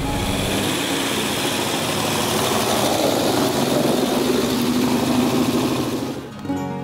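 Off-road race buggy engine running, with a slight rise in pitch midway. Music comes in near the end.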